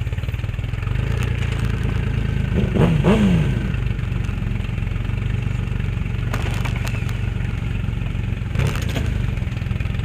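Motorcycle engine idling steadily, blipped up and back down twice about three seconds in. Two short knocks come later.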